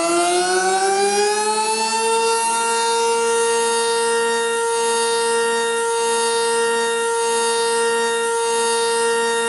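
Civil defense siren winding up, its pitch rising over the first two seconds or so, then holding one steady wail.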